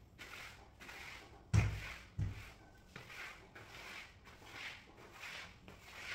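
Long-handled floor squeegee scraping back and forth across a wet floor, a run of swishes about one or two a second. Two dull thumps about a second and a half in are the loudest sounds.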